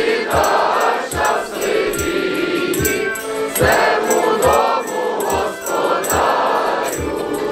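A large mass choir of vertep carolers singing a Ukrainian koliada (Christmas carol) together in phrases, with low drum beats under the singing and a faint jingling.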